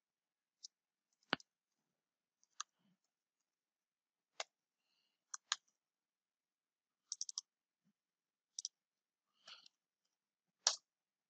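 Computer mouse and keyboard clicks: about a dozen short, sharp clicks spaced apart, with a quick run of four about two-thirds through and the loudest click near the end.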